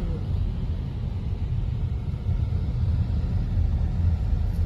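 Steady low rumble of a car driving along a highway, road and engine noise heard from inside the moving vehicle.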